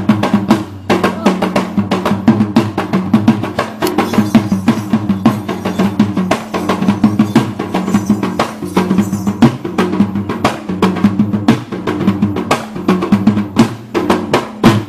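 Fast, dense drumming on Sri Lankan yak bera hand drums, the rhythm accompanying a devil dance, breaking off abruptly at the end.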